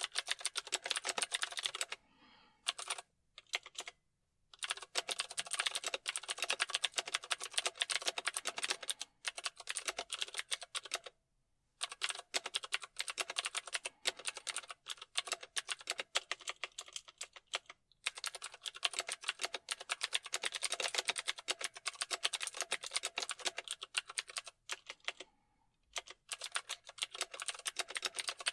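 Computer keyboard typing: rapid runs of key clicks, broken by short pauses every few seconds.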